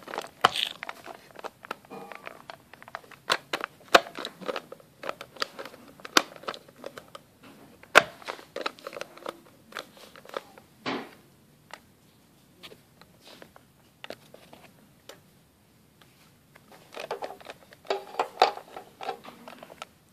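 Plastic toys handled and knocked together: irregular clicks, clacks and taps with rustling of a fleece blanket.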